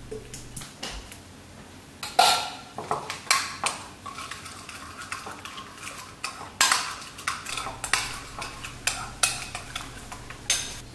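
Metal spoon stirring thick pizza sauce in a white ceramic bowl, clinking and scraping against the bowl in quick, uneven strokes. The strokes come thicker and louder from about two seconds in.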